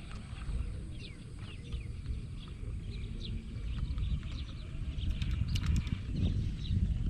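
Many short bird chirps over a steady low rumble, with a few clicks.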